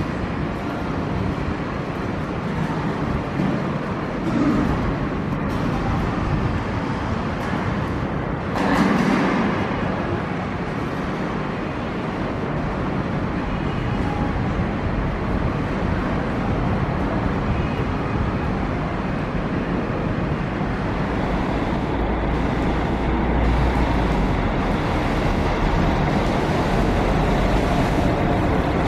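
Mercedes-Benz O-500RSD double-decker coach's diesel engine running as the bus moves and manoeuvres, over steady traffic noise. There is a short loud burst of noise about nine seconds in, and a steadier low rumble near the end.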